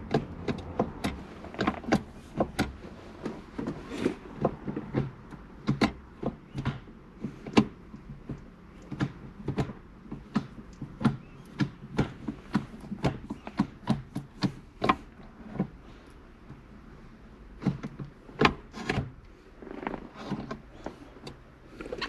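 A CAE short-throw shifter in a Mitsubishi Lancer Evolution being worked through the gates by hand, its lever and linkage clicking and clunking at each throw, about one or two knocks a second with a short pause past the middle.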